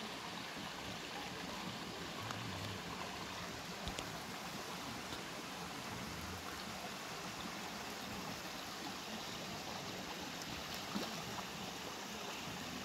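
Steady rush of a stream and small waterfall pouring over rocks into a pool, with a few faint clicks.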